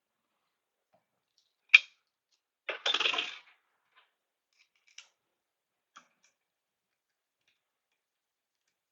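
Small parts being handled during assembly: a sharp click, then a short rattle, and two faint ticks a few seconds later.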